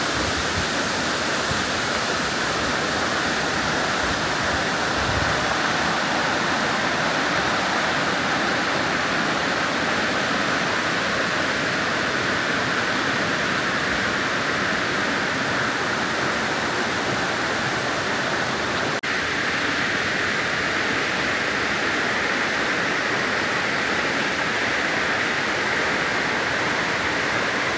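Large waterfall heard from close by: a steady, loud rush of falling water.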